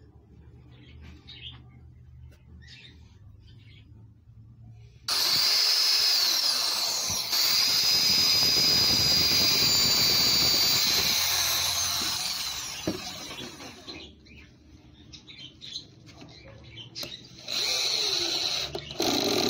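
Electric drill boring a hole down through a pine pallet board into the leg beneath, running steadily with a high whine for about seven seconds from about five seconds in, then winding down. Near the end the drill drives a wood screw into the hole in two short bursts.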